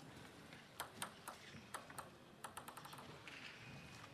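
Table tennis ball bouncing and tapping between points: a string of faint, sharp, irregular clicks, with a quick run of them in the middle.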